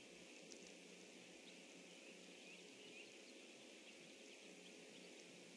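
Near silence: faint steady outdoor hiss of a pond, with a few faint, short, high bird chirps scattered through it.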